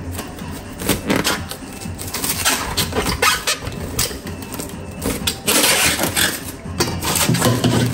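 Plastic cling film crinkling and rustling as it is pulled off the roll and wrapped around vegetables, crackling irregularly.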